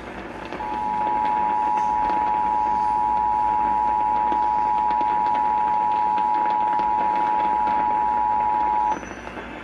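Emergency Alert System two-tone attention signal from a broadcast radio station, a steady two-note tone held for about eight seconds that cuts off suddenly near the end, over radio hiss. It announces a severe thunderstorm warning.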